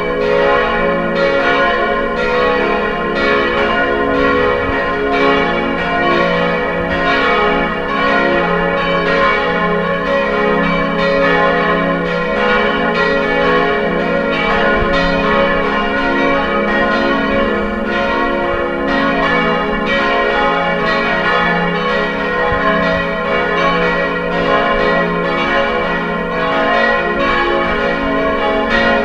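Church bells pealing, several bells ringing at once with their strokes overlapping in a steady, continuous peal.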